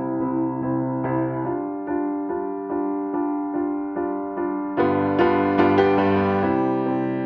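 Background music: a gentle piano or electric piano tune with evenly repeated notes, about two a second, swelling fuller and brighter about five seconds in.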